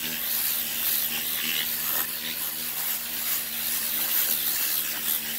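Compressed air hissing steadily from a Vortex cyclone air-blowing tool pressed into a carpeted car floor mat, working deep-down dirt up out of the carpet pile. A faint low hum runs under the hiss.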